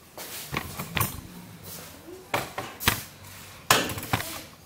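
About six sharp knocks and clunks, spaced irregularly, from handling the kitchen wall cabinet and the spirit level resting on its top during installation. The drill is not running.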